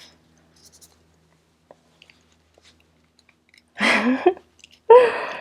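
Mostly quiet room with a few faint small clicks, then two short, loud, muffled vocal sounds from a woman wearing a respirator mask near the end.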